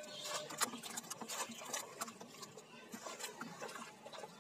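Irregular splashing and sloshing of feet wading through shallow muddy water and a bamboo polo fishing basket being plunged into it, the splashes thicker in the first couple of seconds.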